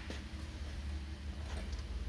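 A few faint, light clicks of a screwdriver and small metal parts being handled at an aluminium automatic transmission case, over a steady low hum.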